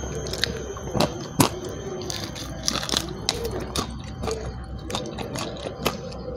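A person chewing food with lip smacks, giving irregular sharp mouth clicks over a steady low hum.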